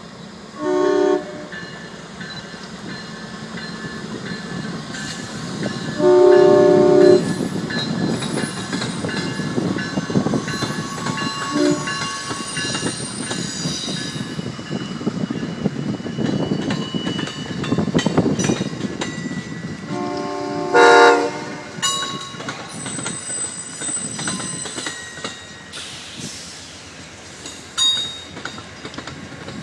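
Amtrak P42 diesel locomotive sounding its chord horn in several short blasts, about a second in, around six seconds, briefly near twelve and again around twenty-one seconds. Between blasts, the locomotive and passenger cars rumble past with wheels clacking over the rail joints and some faint wheel squeal.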